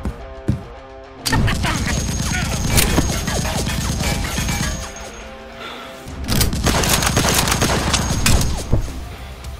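Rapid gunfire and impact sound effects over background music. The shooting starts about a second in, eases for about a second in the middle, then comes back.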